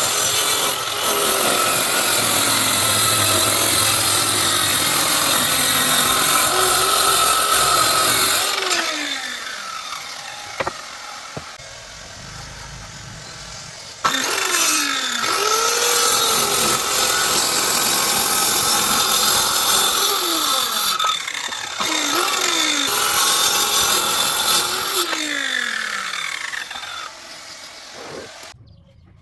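Electric woodworking power tool running while it works wood, its pitch dipping again and again as it bites. It winds down about a third of the way in, starts again abruptly about halfway, and stops near the end.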